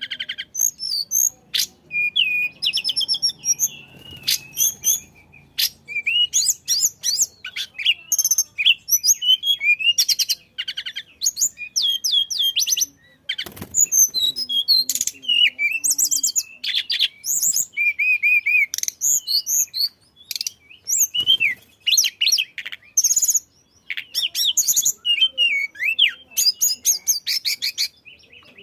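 A tledekan songbird singing vigorously: a fast, busy stream of high chirps, rapid trills and short whistled phrases, broken only by brief pauses.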